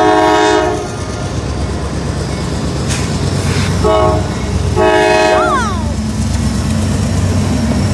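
Freight train cars rumbling past a grade crossing while the train's locomotive horn sounds a chord in three blasts: one at the start, a short one about four seconds in, and another about a second later.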